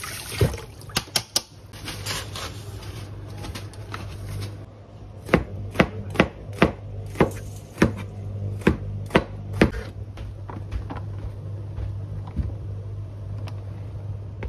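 Cleaver chopping a peeled luffa gourd into rounds on a plastic cutting board: sharp knocks of the blade on the board, a run of about two a second through the middle, with sparser, fainter ones before and after.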